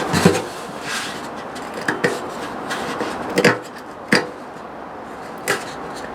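About half a dozen irregular sharp knocks and clinks of hard objects being handled, over a steady background hiss.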